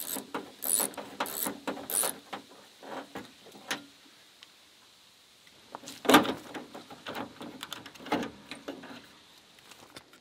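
Scattered metallic clicks and clinks from a 1998 Toyota Tacoma's door handle and latch hardware being worked by hand inside the door. There is a quieter stretch in the middle and a sharp clack, the loudest, about six seconds in.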